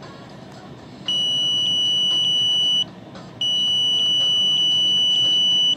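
Handheld electronic signal detector sounding two long, steady, high-pitched beeps: one of under two seconds starting about a second in, then after a short gap a longer one lasting to the end. The owner takes the alarm as a sign of microwave radiation.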